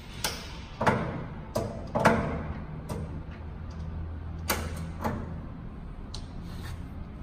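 Speed-change gear levers on an engine lathe headstock clunking into new positions, with the chuck turned by hand to let the gears mesh. A string of metallic clunks and clicks, loudest about one and two seconds in, over a low steady hum that stops after about five seconds.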